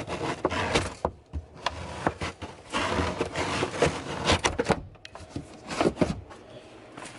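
Fabric trunk lining being lifted and pulled away from the trunk panel by hand: rustling and scraping, with a series of sharp clicks and knocks.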